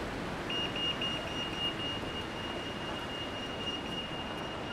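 A high electronic beeper or alarm tone: a few quick beeps about half a second in, then one held tone, over a steady hiss of rain and city background noise.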